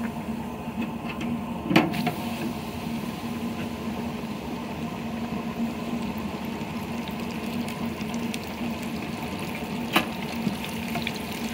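Catfish steaks deep-frying in peanut oil in a fish fryer, a steady sizzling and bubbling, over the steady hum of an electric ice cream maker's motor. Two sharp metal clinks, about two seconds in and near the end, from the wire fry baskets.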